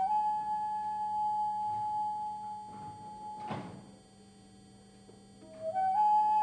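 Background music: a single soft, flute-like note held and slowly fading over about four seconds, a brief faint noise about halfway, then the melody picks up again with notes stepping upward near the end.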